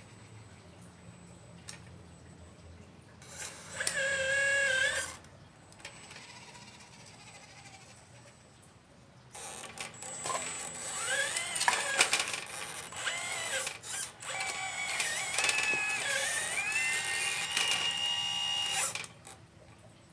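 Small electric motors of a 1/12-scale radio-controlled Liebherr 954 excavator whining: a short steady whine about three seconds in, then from about nine seconds a longer stretch of whining that rises and shifts in pitch as the machine moves, cutting off sharply about a second before the end.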